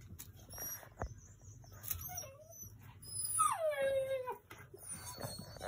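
Husky puppy whining. A short whimper comes about two seconds in, then one long whine a little after three seconds that drops in pitch and then holds. A few soft clicks and scuffs come earlier.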